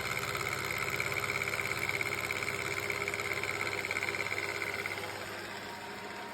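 Milling machine running with a steady hum and a high whine; the whine stops about five seconds in and the hum carries on a little quieter.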